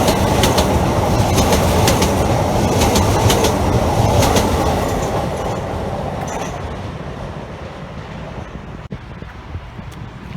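A train passing along the track, its wheels clicking over rail joints, the sound fading away after about five seconds as it moves off.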